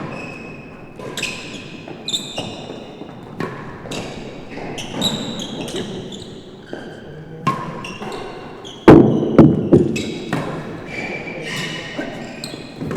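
A real tennis rally: the ball is struck repeatedly by rackets and hits the walls and floor, each hit sharp and echoing through the enclosed court, with short high squeaks between the hits. The loudest hits come in a quick cluster about nine seconds in.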